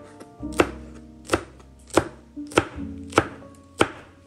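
Chef's knife slicing chili peppers on a plastic cutting board: about six even knife strikes on the board, one a little more than every half second.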